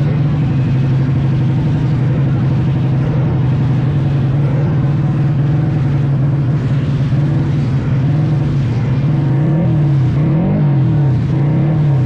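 Tuned drag-racing motorcycle engine running hard at a held, steady high rev, loud, with a few quick rises and falls in pitch near the end as the throttle is blipped.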